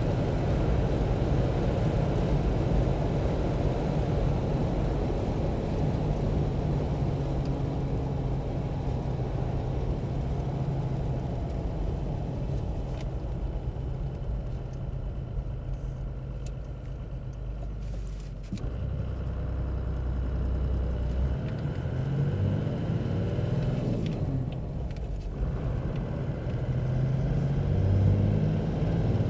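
1988 Toyota Land Cruiser HJ61's 4-litre turbo-diesel humming steadily from inside the cab at cruise. A little over halfway through it drops to a low drone for a few seconds, then climbs again in rising pitch sweeps as the truck accelerates.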